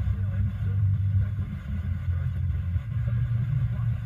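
Car radio tuned to an FM station, playing in the cabin. Its sound is mostly a deep bass rumble that shifts in pitch a few times.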